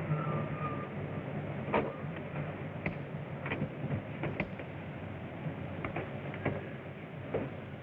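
Steady low hum and hiss of an old optical film soundtrack, with a handful of irregular short clicks or knocks, about seven in all.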